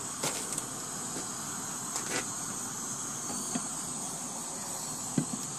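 Propane camp-stove burner hissing steadily under full flame, with a few light metallic clicks and knocks as the tin is lifted off the burner and handled.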